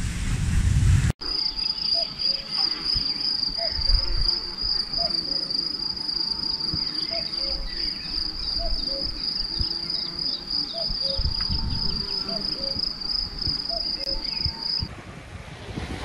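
Meadow insects trilling: one continuous, high, finely pulsing trill, with faint bird calls repeating about once a second beneath it. It starts abruptly after about a second of splashing water noise and stops about a second before the end, giving way to soft surf.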